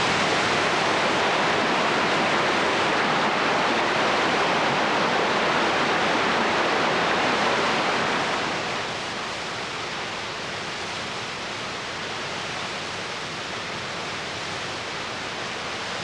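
Victoria Falls: the steady rush of a very large waterfall's falling water, dropping to a lower level about halfway through.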